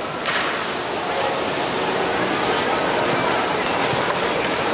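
Skis sliding and scraping over snow: a steady hiss that starts abruptly about a third of a second in and carries on.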